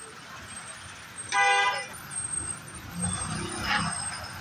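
A vehicle horn honks once, for about half a second, roughly a second and a half in, over the background noise of road traffic.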